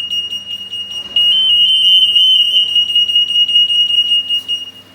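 WT-9200 AM 58 kHz EAS anti-theft antenna sounding its alarm, set off by an acoustomagnetic security label passing between the antennas. It is a loud, shrill, high-pitched tone that steps slightly up and down in pitch, grows louder about a second in, and cuts off just before the end.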